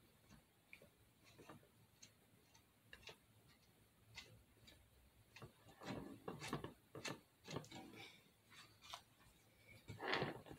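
Faint, irregular clicks and small scrapes of a craft stick spreading spackle onto a popcorn can, busiest a little past the middle, with one louder scrape near the end.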